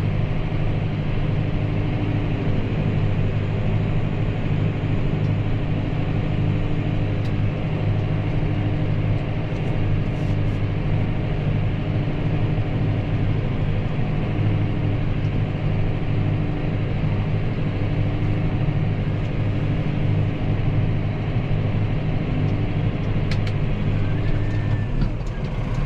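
Massey Ferguson 5S.115 tractor's four-cylinder diesel engine running steadily under load while pulling a plough, a constant low drone.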